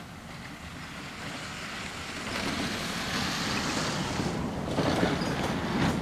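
Noise of a passing vehicle, building up and growing louder about two seconds in.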